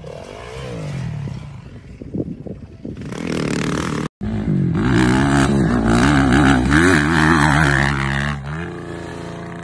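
Motocross dirt bike engines revving. A fainter engine gives way, after a sudden cut about four seconds in, to a loud engine revving up and down on the throttle, which settles to a lower, steadier note near the end.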